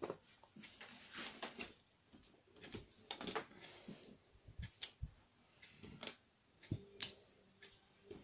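Scattered light taps and clicks of a clear acrylic stamp being inked and pressed onto a paper page, among faint handling sounds.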